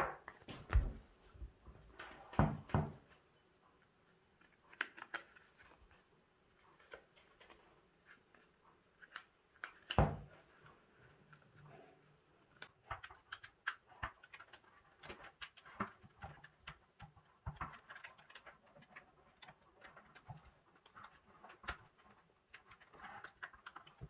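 Scattered light clicks, taps and knocks of a lamp base and its parts being handled on a table, with a louder knock near the start, a cluster about two and a half seconds in and another knock about ten seconds in.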